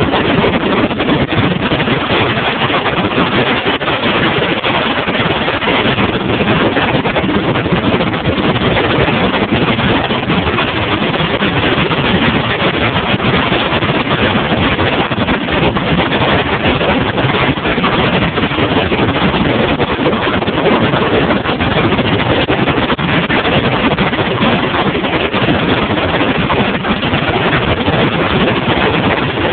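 Small fishing boat under way: the outboard motor runs steadily under a constant rush of water and wind noise.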